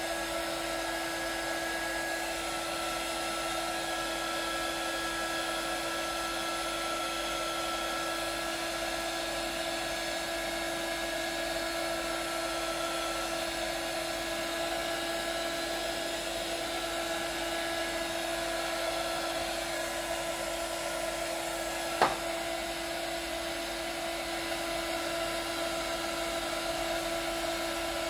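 Hot air gun blowing steadily with an even whir and a fixed hum, heating the headlight lens so that its glue softens. About two-thirds of the way through there is one sharp click.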